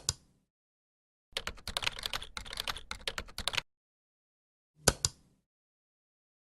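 Typing on a keyboard: a rapid run of key clicks lasting about two seconds. Before it comes a louder pair of sharp clicks, and another pair follows about five seconds in.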